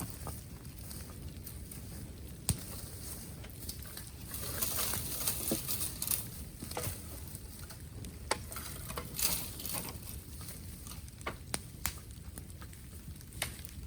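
Bamboo bonfire crackling, with scattered sharp pops and snaps over a steady hiss.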